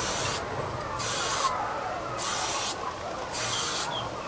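Aerosol spray paint can spraying in four short hissing bursts of about half a second each, roughly one a second.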